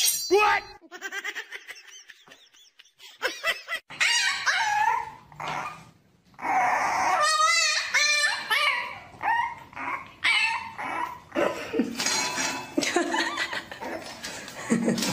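A puppy, a French bulldog, makes a run of short pitched cries that bend up and down in pitch, starting about four seconds in.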